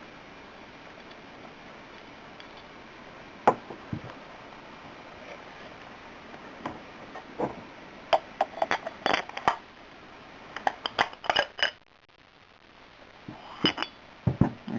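Small metal tools clinking against the aluminium flashlight body and being handled: a couple of single sharp clicks, then quick clusters of light metallic clinks.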